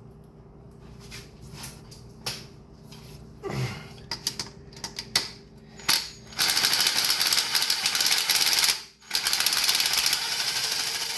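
Ratchet wrench clicking rapidly in two long runs of about two and a half seconds each, with a brief break between, after a stretch of scattered tool clicks: a spark plug being backed out of the cylinder head.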